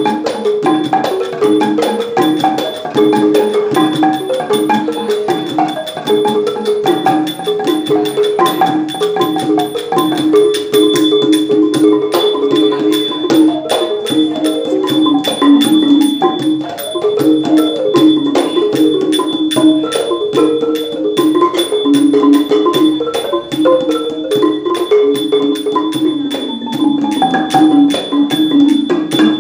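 Ranat thum, the Thai low-pitched boat-shaped wooden xylophone, played solo with padded mallets in quick, continuous runs of mellow notes. Small ching hand cymbals keep a steady beat with a lingering bright ring, and a barrel-shaped hand drum accompanies.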